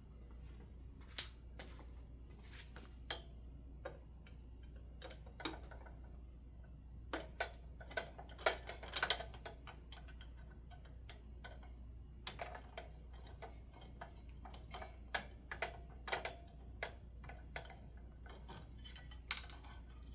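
Scattered small metallic clicks and taps from screws being worked loose on a ceiling fan's light kit. They come irregularly, in a busier cluster about eight or nine seconds in.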